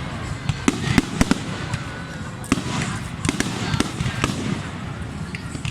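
Fireworks display going off: a rapid, irregular string of sharp bangs and pops over a continuous crackling haze.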